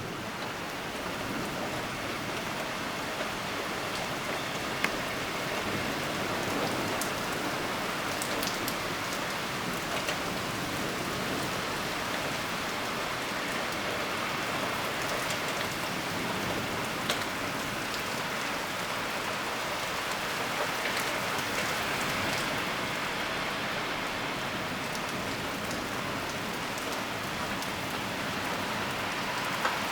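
Steady heavy rain falling during a severe thunderstorm, with an occasional sharp tick of a drop landing close by.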